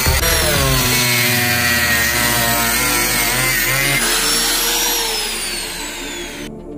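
An angle grinder with a thin cutting disc runs at speed while cutting a thin white plastic sheet. About five seconds in, its high whine slides down in pitch and gets quieter as the motor winds down.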